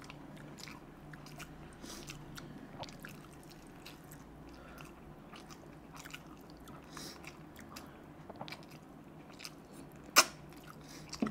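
Close-miked eating: biting and chewing meat off the bone, with wet mouth noises and scattered small clicks. One sharp click comes about ten seconds in.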